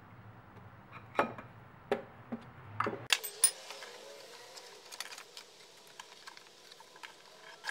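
Handling clicks and light rattles as the ribbed alternator serpentine belt on a BMW E46 330i engine is pulled off its pulleys by hand. The clicks come as a cluster of sharp knocks about one to three and a half seconds in, then thin out to lighter ticks.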